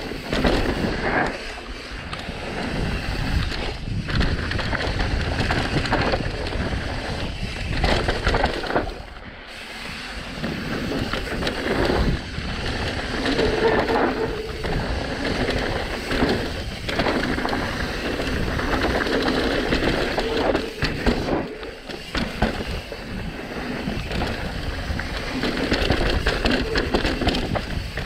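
Mountain bike descending a rough trail: tyres rumbling over dirt and rock, with irregular rattles and knocks from the bike, and wind noise on the camera microphone.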